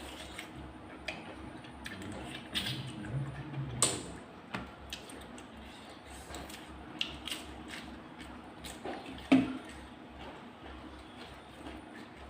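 Blood cockle shells clicking and cracking as they are pried open to eat, in irregular sharp clicks, the loudest about nine seconds in.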